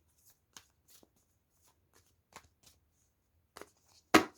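Tarot cards being drawn from the deck and laid out on a table: light scattered flicks and taps of card stock, with one sharper slap of a card just after four seconds in.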